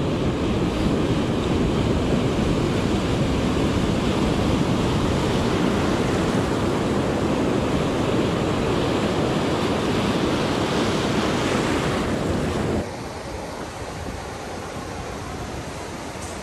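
Surf washing and breaking close by in the shallows, with wind on the microphone. About thirteen seconds in it cuts to a quieter, steady hiss of surf.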